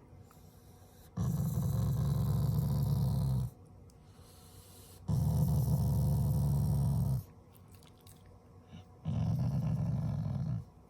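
Black Shiba Inu growling low three times, each growl about two seconds long with short pauses between: the dog's habitual affectionate growl, not anger.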